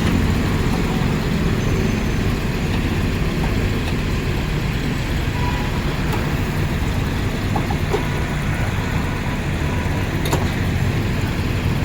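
A motor vehicle's engine running steadily, with road and traffic noise, and a single sharp click about ten seconds in.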